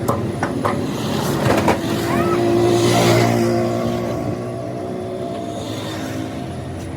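A motor vehicle passing on the road: engine and tyre noise swell to a peak about three seconds in, then fade. A few sharp knocks come in the first two seconds.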